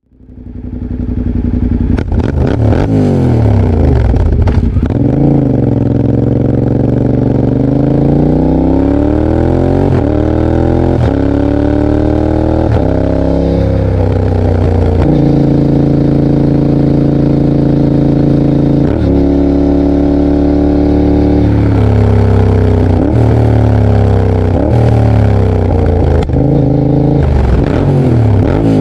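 Yamaha Tracer 7's parallel-twin engine running loud through a GPR exhaust with the dB killer removed, accelerating up through the gears. The revs climb and are cut sharply at each quickshifter upshift, with stretches of steady cruising between the runs.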